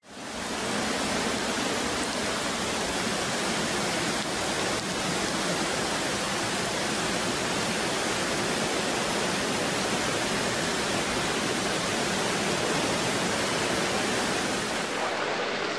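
Muddy floodwater rushing in a torrent across a road: a steady, dense rush of water with no break.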